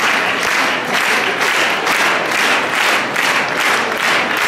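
Audience applauding, the clapping falling into a steady rhythm of about two claps a second.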